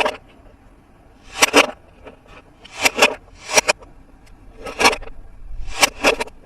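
Toy packaging being handled and opened by hand: a series of short strokes of noise, about six in all, roughly a second apart.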